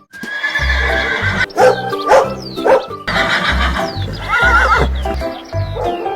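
A horse neighing, a wavering whinny about four seconds in, over background music with a steady pulsing beat.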